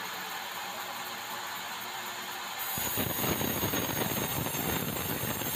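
Large band sawmill running steadily with red meranti timber on its carriage. About halfway through, a louder, rougher noise joins and keeps going as the timber is worked.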